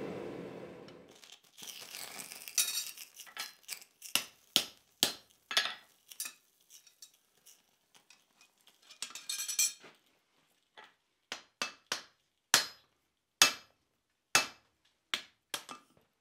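Irregular light metallic clinks and taps of steel blacksmith's tongs and a square drift against a hot bar and the anvil, with a short hiss about nine seconds in. The taps grow louder after about twelve seconds.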